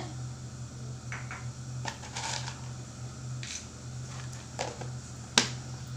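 A plastic food tub of cereal and its lid being handled: scattered light rustles and clatters, with one sharp click a little over five seconds in. A low steady hum runs underneath.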